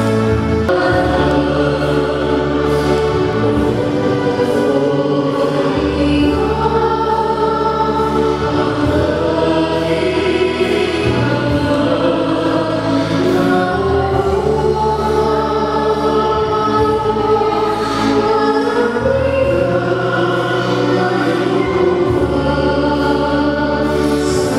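Choir singing a Christian hymn over an accompaniment with long-held bass notes that change every few seconds.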